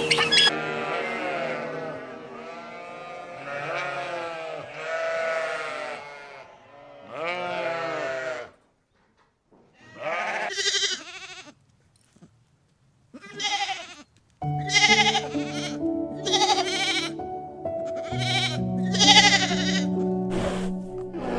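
Sheep bleating repeatedly, a string of wavering calls, over soft background music that drops out midway and comes back.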